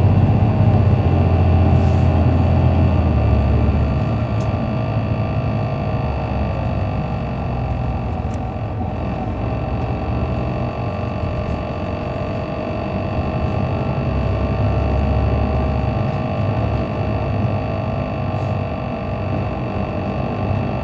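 Cabin sound of a 2007 MCI D4500CL coach under way, its Caterpillar C13 diesel engine and Allison transmission running with a steady whine that drifts slightly in pitch. The engine's low drone is heavy at first, eases about four seconds in, and builds again around fifteen seconds.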